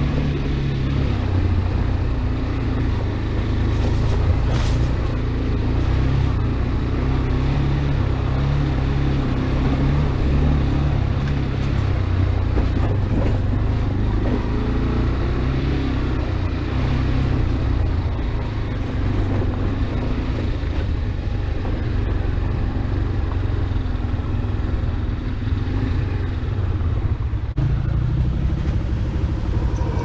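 AKT RX1 adventure motorcycle's engine running steadily while riding off-road on a dirt and rock trail. The sound changes abruptly near the end.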